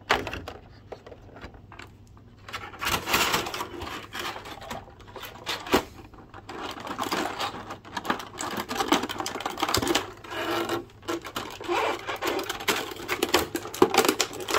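Plastic packaging crinkling and clicking as hands work at a twist tie holding an action figure in its tray. The handling starts about two and a half seconds in and goes on irregularly.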